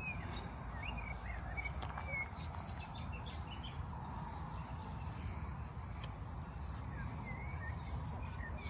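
Small birds chirping faintly in short, scattered calls, a few in the first couple of seconds and more near the end, over a steady low rumble.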